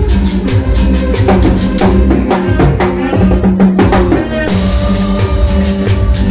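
Live Latin dance band playing: keyboard, congas and timbales with metal güira scrapers keeping a steady beat. A dense run of drum strokes sits in the middle, and the band's sound changes about four and a half seconds in.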